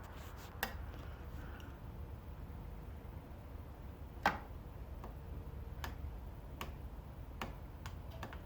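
Scattered sharp clicks and ticks, about eight, irregularly spaced, the loudest about four seconds in, over a steady low hum.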